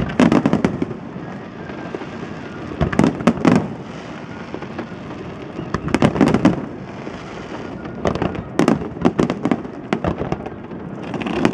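Fireworks display: volleys of aerial shells bursting, each volley a rapid cluster of sharp bangs, coming about every three seconds over a steady background hum.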